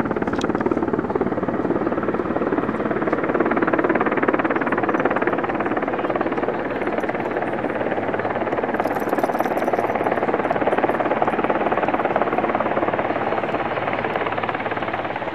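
Eurocopter AS332 Super Puma helicopter flying low and approaching, its rotor and turbines making a loud, steady, rapid blade chop.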